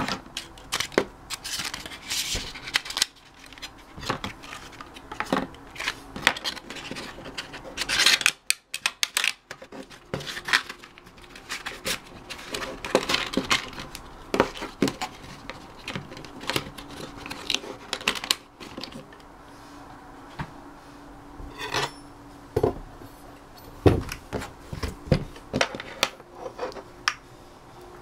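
Irregular clicks, taps and scraping as small plastic parts and packaging are handled by hand.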